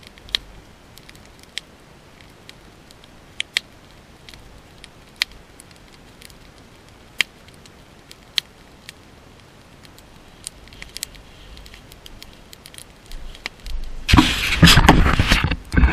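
Wood campfire crackling, with sharp single pops about once a second. Near the end there is a loud rustle of clothing and footsteps as someone walks right past close by.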